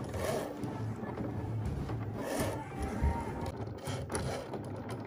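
Cricut Maker 3 cutting machine running, its motors whirring as the carriage and rollers work the blade over a vinyl sheet on the cutting mat. A single thump about three seconds in.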